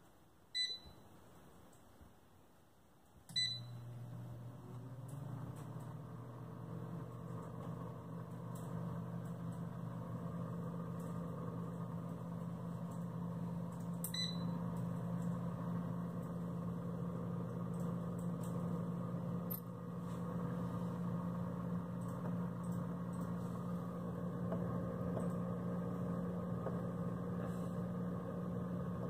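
PowerAirFryer Oven's touch panel beeps, and with a second beep its fan starts and runs with a steady hum, building up over the first few seconds. Another short beep sounds about halfway through.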